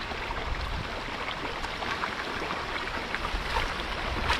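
Steady rush of running water, with scattered small splashes and ticks.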